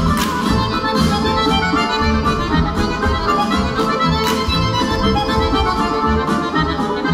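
Lively instrumental dance music with a steady beat, played for a stage dance.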